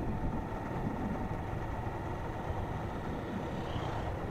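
Engine of a Honda CG 160 Start motorcycle, a small single-cylinder four-stroke, running steadily while riding at a constant pace, with road noise.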